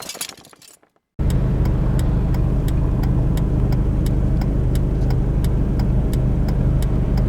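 Inside a car waiting at a traffic light: a steady low engine idle hum with a regular light ticking about three times a second. It cuts in about a second in, after the tail of the intro music dies away.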